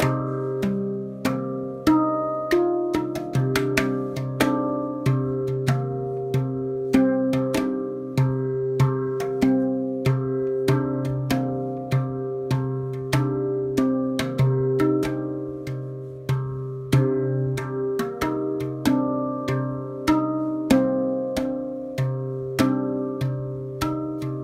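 Spacedrum handpan in the 'Deep Sky' tuning (C3 Eb3 G3 Bb3 C4 D4 Eb4 F4) played with the hands: a steady flow of struck steel notes, about one or two a second, each ringing on under the next.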